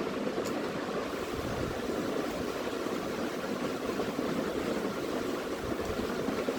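Steady rushing background noise with no clear tone or rhythm.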